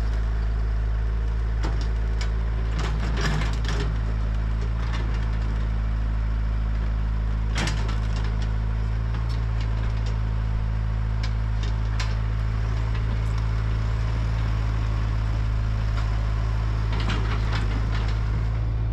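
Diesel engines of a crawler excavator and a loaded dump truck running steadily at idle, a low even hum that does not rev. Scattered sharp cracks and knocks come over it, the clearest about three seconds in, near eight seconds and at twelve seconds.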